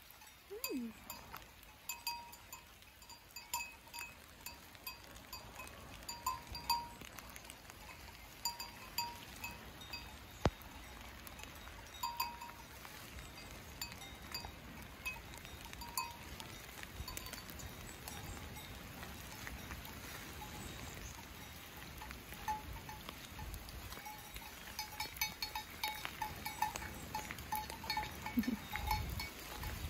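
Cowbells on grazing cows clanking in short, irregular rings, more often near the end, over light rain pattering.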